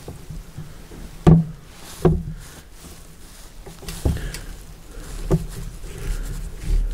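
Four dull knocks of a rifle and gear being shifted and settled against the shooting rest and walls of a hunting blind, the loudest about a second in, the others spaced a second or so apart.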